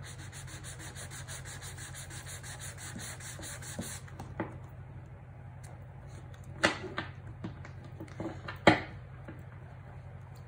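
Sanding pad rubbed quickly back and forth over the cut edges of a trimmed tarot deck's thick cardstock, about seven even strokes a second for the first four seconds. The cards are then handled, with a few sharp taps, the loudest near the end.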